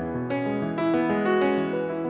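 Piano background music: notes and chords struck about twice a second, each fading away.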